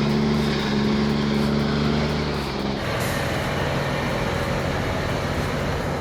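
Heavy vehicle engine running steadily, changing abruptly about three seconds in to a rougher, noisier engine sound.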